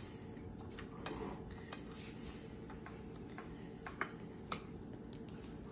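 Cutlery clicking and scraping lightly against a plate, a series of short clicks at irregular intervals, the sharpest about four seconds in.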